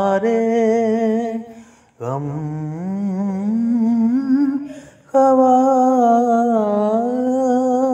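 Unaccompanied solo voice singing an Urdu naat in long, drawn-out notes with a wavering vibrato, in three phrases with short breaths about two and five seconds in.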